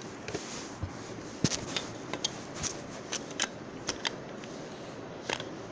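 Irregular sharp clicks and rattles of a plastic toy vending machine being handled as it is fixed, with a louder click about a second and a half in.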